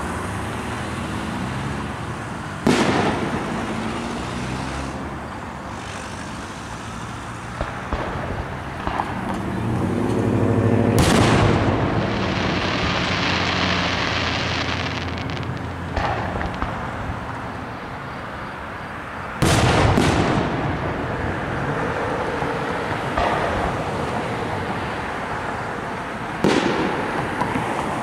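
Aerial firework shells bursting one after another at irregular intervals of a few seconds, with sharp booms. Two burst almost together about two-thirds of the way in, and one near the middle is followed by a few seconds of hissing.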